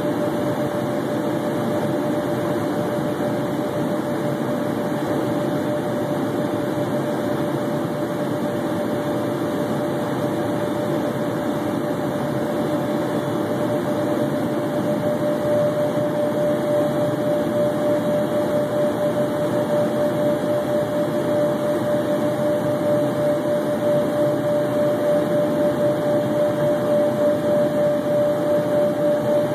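Steady cabin noise of an Embraer Phenom 100 twin-turbofan light jet in flight: a rush of air and engine hum with a steady whine running through it. About halfway through it grows slightly louder, with a slow pulsing.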